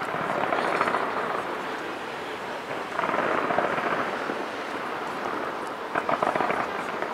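Fireworks crackling and popping in dense volleys that swell about every three seconds.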